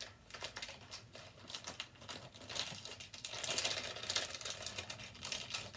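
Plastic bag crinkling and rustling in the hands as a small toy is pushed back into it, a dense run of fine crackles that grows busiest in the second half.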